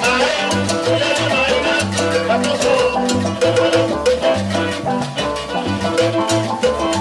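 Live salsa band playing, with a repeating bass line under steady Latin percussion and pitched melody instruments.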